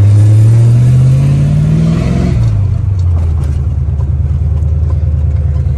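Car engine accelerating, its pitch rising for about two seconds, then dropping at a gear change and running steadily at a lower pitch.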